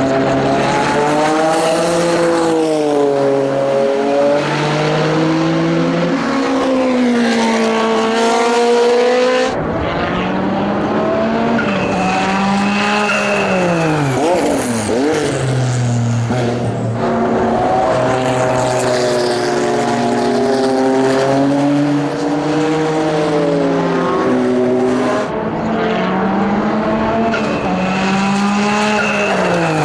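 Porsche 962C Group C race car's turbocharged flat-six running hard on track, its revs climbing and dropping through gear changes. A car passes by with a sharply falling pitch about halfway through and again near the end.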